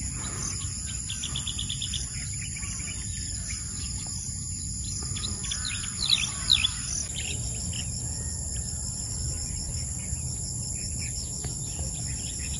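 Insects trilling in steady high continuous tones, with birds chirping now and then, the loudest chirps about six seconds in. A low rumble runs underneath.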